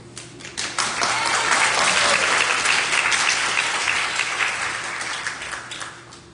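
Audience in a theater applauding: a few scattered claps, then full applause swelling about a second in and dying away near the end.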